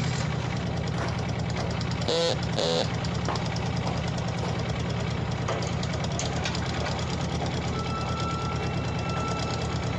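Yanmar SV08-1 mini excavator's diesel engine running steadily with a fine, even clatter. About two seconds in there are two short, sharper sounds, and near the end a faint thin whine joins as the boom is lifted.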